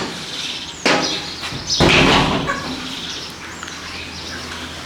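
A house of grown broiler chickens: faint calls and stirring from the flock, with a short noisy burst about a second in and a louder one about two seconds in.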